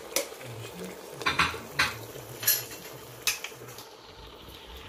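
A wooden spoon stirring chopped tripe, onion and spices in a metal cooking pot, knocking and scraping against the pot about half a dozen times.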